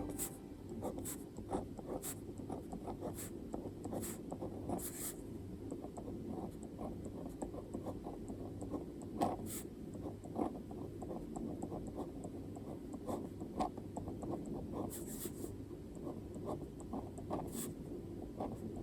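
Handwriting on paper: a steady run of short scratching strokes with sharper taps now and then.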